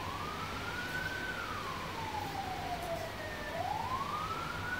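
An emergency-vehicle siren wailing: its pitch rises over about a second, falls slowly for a couple of seconds, then rises again near the end, over a steady hiss.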